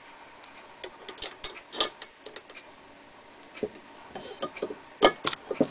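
Scattered light clicks and ticks from a Lyman Universal Case Trimmer being handled and adjusted, with a sharper knock about five seconds in.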